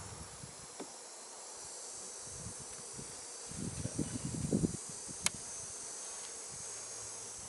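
Honeybees buzzing around an open hive. There is a run of low bumps and rustling about halfway through, and a single sharp click a second later.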